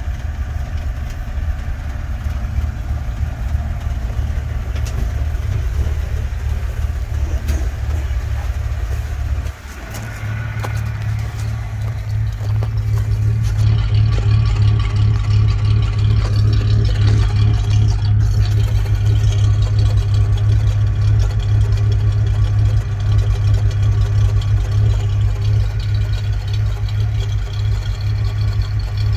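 1951 Dodge B3B pickup's freshly rebuilt flathead straight-six idling steadily. It is heard first from inside the cab, then louder and closer at the exhaust pipe from a little under halfway on.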